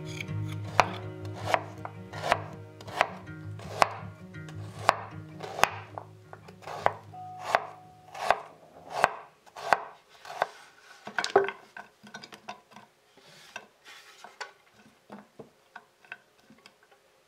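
A kitchen knife slices through fresh ginger root onto a wooden cutting board in sharp, evenly spaced cuts, about one every 0.7 seconds. After about 12 seconds the cutting stops and only faint light clicks and taps are left. Soft background music fades out in the first half.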